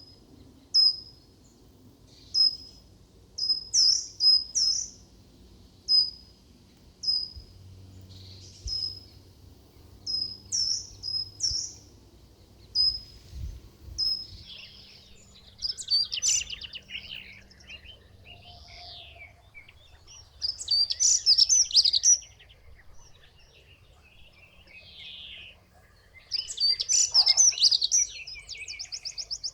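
Wild birds calling and singing. A short, high, falling chirp repeats about once a second through the first half. From about halfway, longer warbled song phrases come in three bursts.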